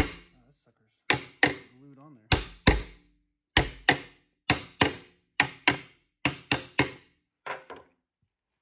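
Hammer blows on the input shaft of an NV4500 five-speed transmission: about fifteen sharp metal-on-metal strikes, often in quick pairs, with the last two lighter ones near the end.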